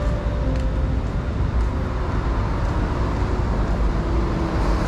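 Road traffic on a wet city street: a steady low rumble with a hiss of passing vehicles.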